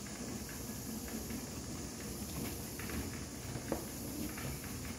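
Water at a rolling boil in a stainless steel pot: steady bubbling and hiss with small irregular pops, and one sharper click about three-quarters of the way through.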